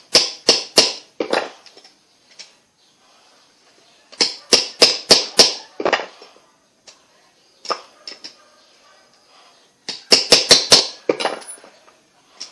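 Ball-peen hammer tapping a small jigsaw bearing part on a wooden board, sharp metal-on-metal strikes in four quick runs of several blows each.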